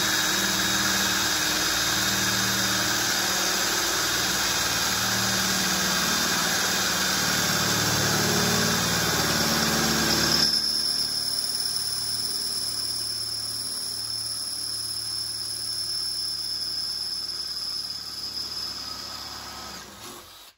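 Cordless drill boring a hole through thin sheet-steel bracket, the motor running steadily with the bit grinding in the metal. About halfway through, the grinding thins out and a steadier high whine carries on until the drill stops just before the end.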